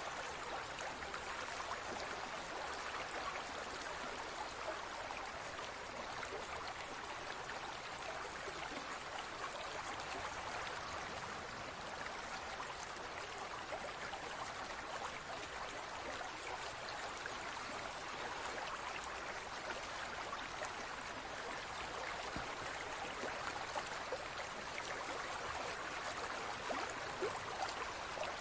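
Large aquarium's water trickling and splashing steadily, with small drips and bubbles.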